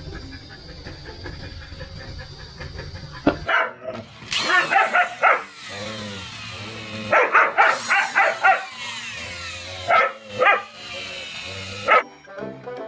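A husky-type dog vocalising in a run of short yelping, barking calls. Several come in quick succession about halfway through.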